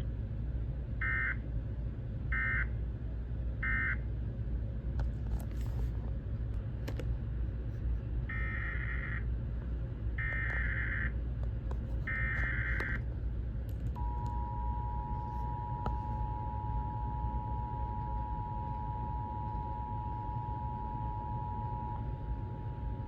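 Emergency Alert System signalling over constant radio hiss and rumble. First come three short end-of-message data bursts, then three longer SAME header data bursts about two seconds apart, which encode the next warning. About two-thirds in, the steady two-tone EAS attention signal starts and holds for about eight seconds.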